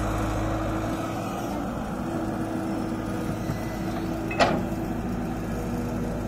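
Tata Hitachi hydraulic excavator's diesel engine running steadily while the boom and bucket work, with one sharp clank about four and a half seconds in as the bucket comes down onto the soil.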